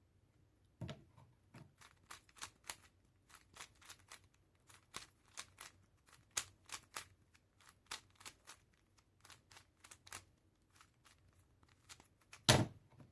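QiYi Warrior W 3x3 stickerless speedcube being turned quickly in a solve: a run of quick plastic clicks and clacks from the turning layers, several a second, with one louder knock near the end.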